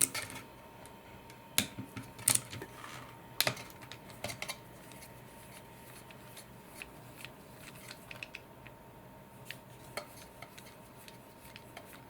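Small metal clicks and clinks of a Torx T8 screwdriver backing screws out of the connector terminals on a Dyson V10 vacuum's motor assembly. The clicks are irregular, the loudest bunched in the first four seconds or so and fainter taps following.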